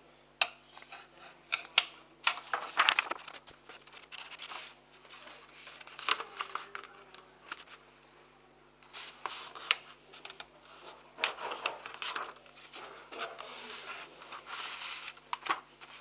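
Wooden chopsticks clicking and rubbing against a tabletop, with a sheet of paper rustling as it is handled. There are several sharp clicks in the first few seconds, then repeated bursts of rustling.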